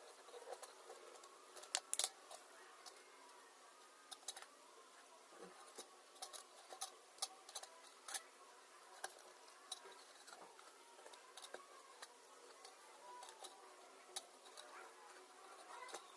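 Faint, irregular small clicks and taps over a low hiss, with no steady rhythm; the loudest pair comes about two seconds in.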